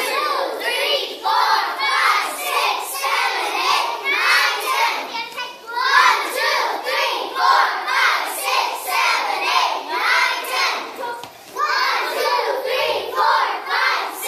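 A class of young children calling out together in a loud, rhythmic chant, with a short pause about eleven seconds in.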